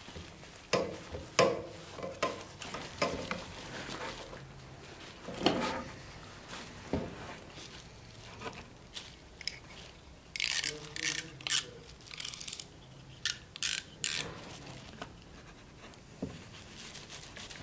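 Leather being worked by hand on bubble wrap: scattered taps, knocks and rubs as it is pressed and smoothed, then a run of about eight short scraping strokes as a small metal-tipped tool is drawn along the leather.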